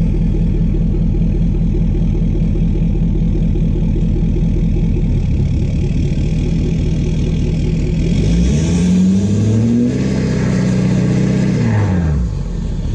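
Straight-piped, emissions-deleted 6.7 Powerstroke V8 turbo-diesel idling, then revved once about eight seconds in, held for a few seconds, and dropped back to idle near the end.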